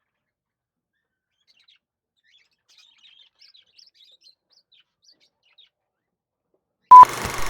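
Faint, scattered budgerigar chirps over near silence, then near the end a loud, short electronic beep sets in over a steady hiss.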